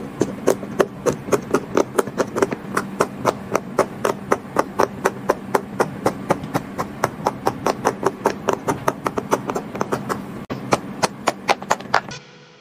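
Bubbles of a large silicone pop-it fidget toy being pressed in quick succession, a rapid run of pops at about four to five a second that stops just before the end.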